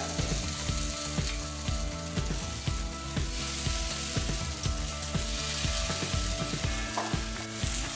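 Marinated paneer tikka skewers sizzling in oil on a hot nonstick tawa, a steady frying hiss with scattered light taps and clicks as the skewers are set down.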